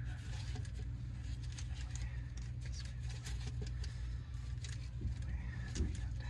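Faint rustling and light clicks of gloved hands pushing rubber transmission oil-cooler hoses through the underbody frame, over a steady low hum.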